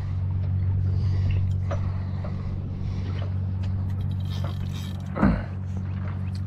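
Honda 130 outboard motor idling with a steady low hum, with light scrapes and ticks of tackle on the boat. A single loud knock about five seconds in.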